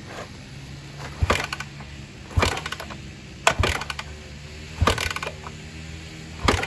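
Kawasaki KZ400 parallel-twin being kick-started: five kicks about a second apart, each a sharp clattering stroke of the kick-starter turning the engine over. The bike has no battery and runs on a capacitor wired into the main harness in its place.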